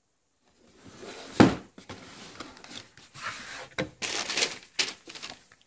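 Cardboard shoe box being opened, with one sharp knock about a second and a half in, then tissue paper and a folded paper card rustling and crinkling under the hands.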